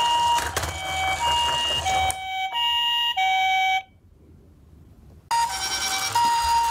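Toy ambulance's electronic two-tone siren, a high and a low tone taking turns. It cuts out about four seconds in and starts again a second and a half later.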